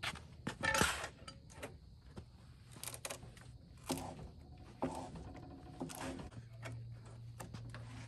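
Scattered metal clinks and knocks as the steel tip of a cant hook is set into a hole in a steel unistrut rail and its handle is levered against a log, with a louder scrape about a second in.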